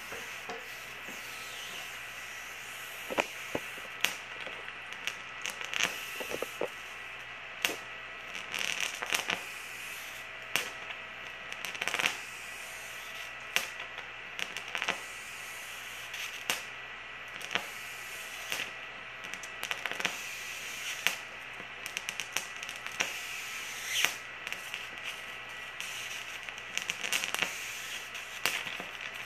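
High-voltage arcs from a flyback transformer driven by a ZVS driver: irregular sharp snaps and crackling as the arc strikes and is drawn out, several times a second at its busiest. Under them runs a steady high-pitched whine from the running driver circuit.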